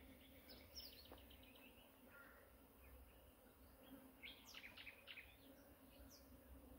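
Faint birdsong: scattered short calls of quick, falling chirps, with a run of several about four to five seconds in.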